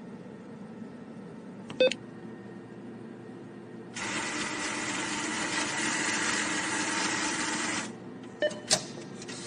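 A short electronic beep, then a steady hiss with a faint hum that starts suddenly about four seconds in and stops just before the end. Two more quick beeps follow close together near the end.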